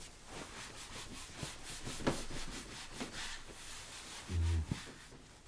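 Whiteboard eraser rubbing across the board in quick back-and-forth scraping strokes for about three seconds, followed by a short low hum from a man's voice.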